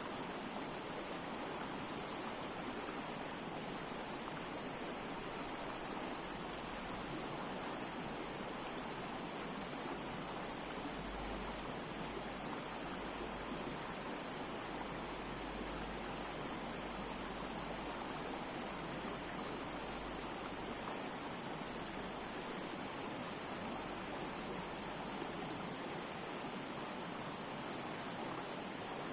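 Mountain stream rushing steadily over rocks, an even hiss of flowing water.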